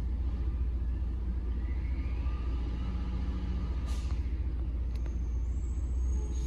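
Peterbilt 520 garbage truck with a Bridgeport Ranger automated side loader working down the street: a steady low rumble, with a faint rising whine in the middle and a sharp click about four seconds in.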